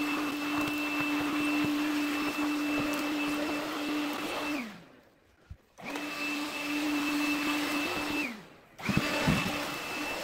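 Makita stick vacuum running with a steady motor whine. It is switched off and winds down twice, first a little before halfway and again past two-thirds, and starts up again each time. A few knocks follow just after the second restart.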